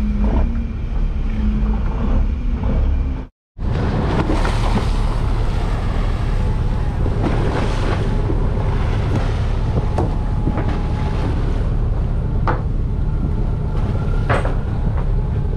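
Fishing boat's engine running steadily, with wind buffeting the microphone and the rush of waves on the open sea. The sound drops out completely for a moment about three seconds in.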